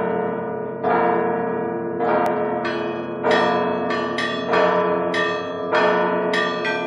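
Church bells ringing, struck strokes each ringing on into the next, about one a second at first and then quicker and overlapping.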